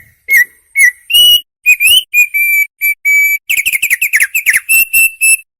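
Opior singing a loud phrase of clear whistled notes, some rising or slurred, then a fast run of short falling notes about three and a half seconds in, ending on a few steady whistles.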